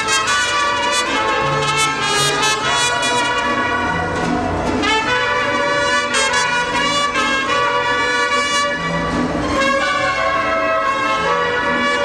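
Mariachi band playing, with trumpets carrying the melody over a low bass line of held notes.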